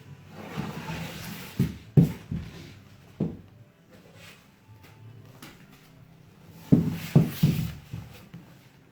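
Several soft knocks and thumps of objects being handled and set down, in two clusters about two seconds in and about seven seconds in, with no power tool running.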